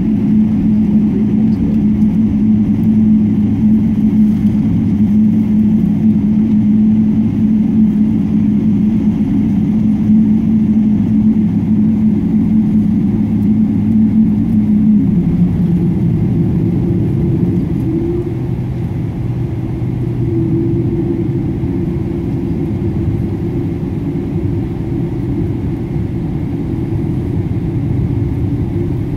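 Inside the cabin of a Boeing 777-300ER, its GE90-115B engines running at idle while the plane taxis: a steady low hum with a droning tone. About halfway through the drone drops away, a slightly higher tone comes in, and the sound gets a little quieter.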